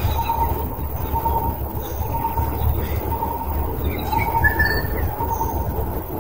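Birds calling: a short note repeated over and over, about once every two-thirds of a second, with faint higher chirps, over a steady low rumble.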